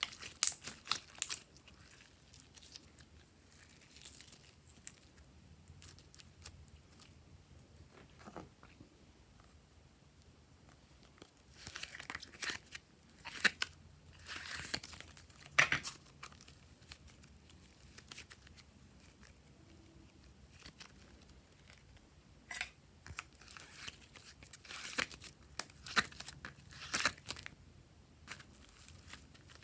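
Glossy slime being stretched and squished by hand, giving off bursts of sticky crackling and tearing sounds with quieter pauses between.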